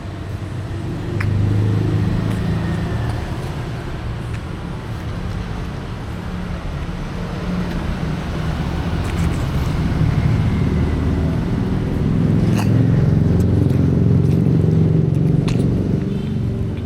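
Road traffic: a low vehicle rumble that swells about a second in and again through the second half, with a few sharp clicks.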